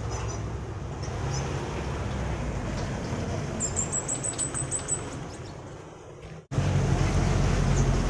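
Caged songbird giving a rapid high trill of about ten quick notes, with a few short chirps near the start, over a steady low rumble. The sound cuts out briefly near the end and comes back with a louder rumble.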